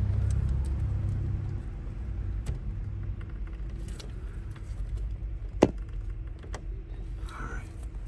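Low rumble and handling noise with light metallic clicks, and one sharp click a little past the middle, from hand work on the clutch pedal's pivot pin under the dash as it is pushed over.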